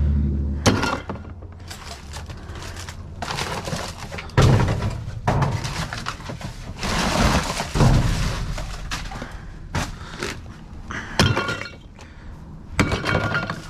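Rummaging through a trash can of auto-shop waste: repeated clattering knocks and scraping as metal parts such as brake pads and oil filters are shifted and pulled out.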